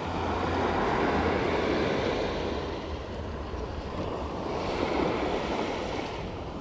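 Small sea waves breaking and washing up a sandy beach, swelling louder about a second in and again near the end, with a low wind rumble on the microphone.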